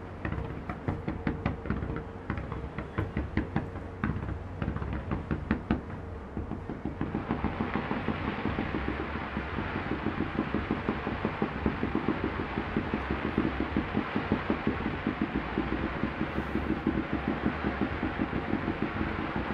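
Aerial fireworks going off in a rapid string of bangs and crackles, which about seven seconds in thickens into a dense, continuous crackling barrage.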